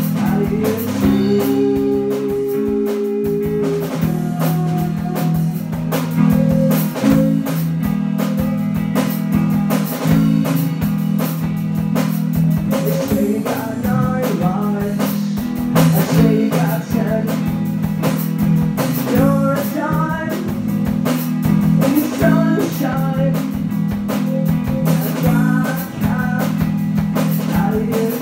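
A live band playing: electric guitars over a drum kit, with bending guitar lines above a steady beat and no clear vocal.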